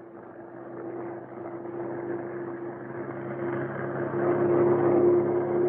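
Bell P-39 Airacobra's Allison V-12 engine running in flight, a steady hum with a held tone that grows steadily louder.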